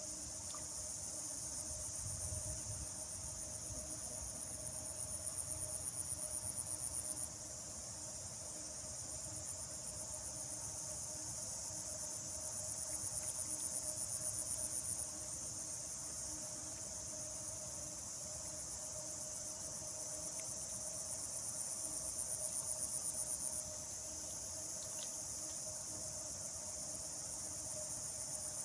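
Insects chirring steadily in a continuous high drone, with a pulsing high trill over it and a fainter low steady hum beneath.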